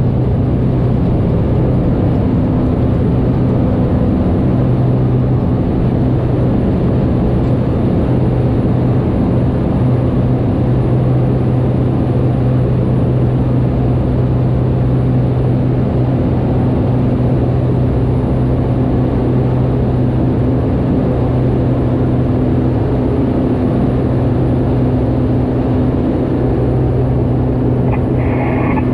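Cessna 208 Grand Caravan's single PT6A turboprop engine and propeller at takeoff power, heard inside the cockpit during the takeoff and climb-out: a loud, steady drone with a low, even propeller hum.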